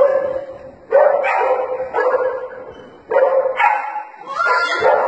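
A dog barking repeatedly, about once a second, each bark held briefly.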